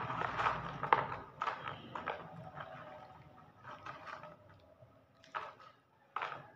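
Small items clattering and clicking in a plastic box as they are handled, busiest in the first second or so, then a few separate clicks, two sharp ones near the end.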